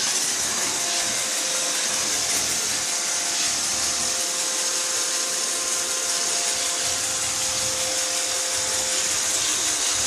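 iRobot Roomba robot vacuum running: a steady, even whirring hiss from its vacuum motor and brushes, with a faint steady hum underneath.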